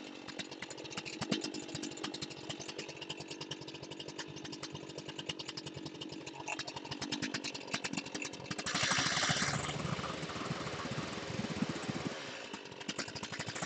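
Two-stroke chainsaw running with a rapid, slightly uneven firing pulse, the chain working into a wooden board to carve letters. About nine seconds in it gets briefly louder and brighter, then settles back.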